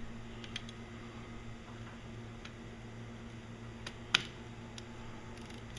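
A few light clicks and one sharper metallic click about four seconds in, from hand tools being handled, over a steady low hum.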